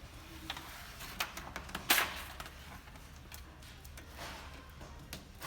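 Vinyl sticker and its backing paper being peeled and handled: scattered light clicks and rustles, with one louder crackle about two seconds in.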